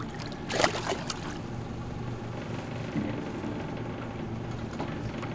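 A small lingcod splashing briefly at the water's surface beside a boat, about half a second in, followed by lighter water sounds as a hand reaches in to grab it. A steady low hum from the boat's engine runs underneath.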